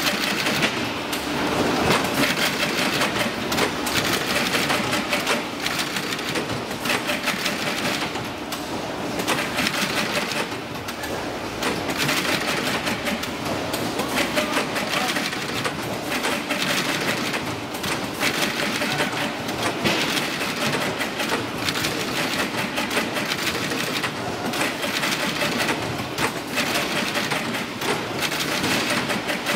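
Semi-automatic carton stitching machine running, stapling corrugated cardboard boxes with a rapid, steady run of repeated mechanical strokes.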